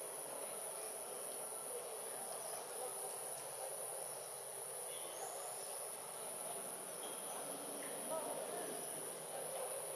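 Steady, unbroken high-pitched insect drone from the surrounding trees, over a low even background murmur.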